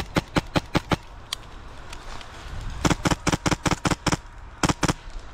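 Airsoft rifle firing strings of sharp cracks: several quick shots in the first second, a faster run of about seven about three seconds in, and three more near the end.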